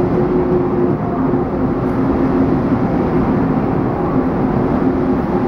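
Taiwan Railways E1000 push-pull express train pulling out of the station, its passenger cars rolling past the platform with a steady running noise and a steady hum.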